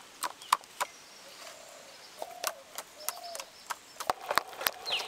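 A string of sharp clicks and taps as hands work the potato filling, with hens clucking faintly in the background.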